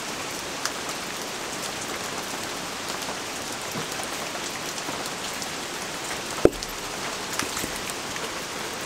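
Steady rain with scattered small drips and ticks. About six and a half seconds in, a single sharp wooden knock as a split piece of firewood is taken from the woodpile.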